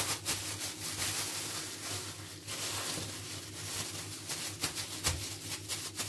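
Thin plastic freezer bags crinkling and rustling in irregular bursts as they are knotted shut and pressed flat, with a soft thump about five seconds in.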